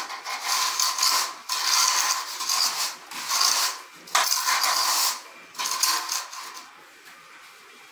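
Metal straightedge scraped back and forth over damp sand-cement mortar, screeding a level guide strip for a subfloor: about five gritty rasping strokes of a second or so each, stopping near the end.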